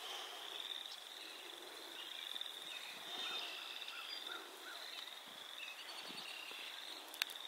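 Faint outdoor ambience: a steady high-pitched trilling chorus, with a few short bird-like chirps around the middle and a sharp click near the end.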